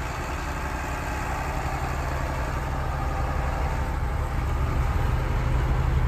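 Diesel engine of a John Deere 8410 tractor pulling a grain cart, a steady low rumble heard from inside a truck cab, growing louder as the tractor draws up alongside.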